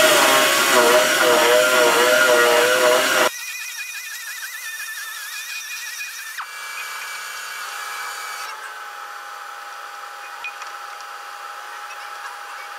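Handheld grinder grinding steel on a skidder grapple's welded eyelet, the motor's pitch wavering under load. About three seconds in it drops abruptly to a much quieter whine.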